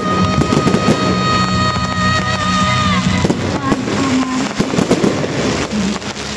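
Fireworks bursting in quick, irregular bangs and crackles over music played for the pyromusical show. The explosions are loud enough to drown out much of the music.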